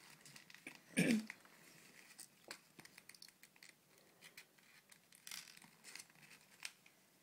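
Sheet of paper rustling and crinkling in light ticks and scrapes as it is folded and its flaps tucked in. One short, louder sound about a second in slides down in pitch.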